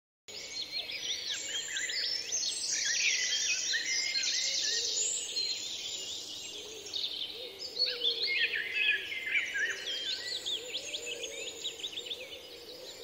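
A dense chorus of many small songbirds, with overlapping chirps and trills, and fainter lower calls beneath them. It starts suddenly just after the beginning.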